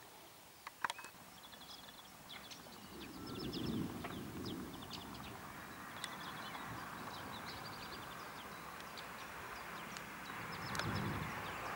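Small birds chirping in short repeated trills over a steady outdoor hiss. Two low rumbling swells stand out, one about three seconds in and another near the end.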